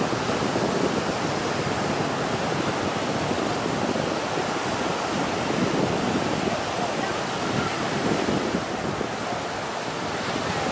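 Steady rush of ocean surf breaking on a sandy beach, with wind blowing on the microphone.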